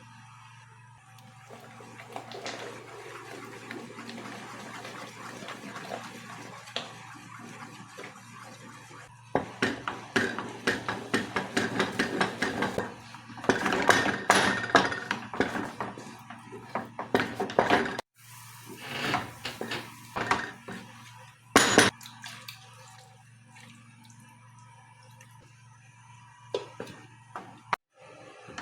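Kitchen pot sounds: a steady hiss of water at first, then a utensil knocking and scraping rapidly against a pot for several seconds, followed by scattered single knocks with one loud strike.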